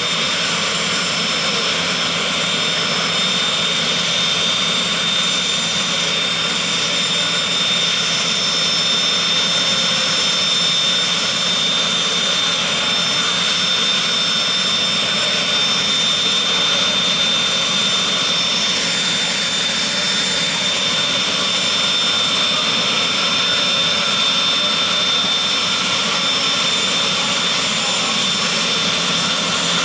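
Jet dragster turbine engines idling: a steady, loud rush with a high whine held on one pitch.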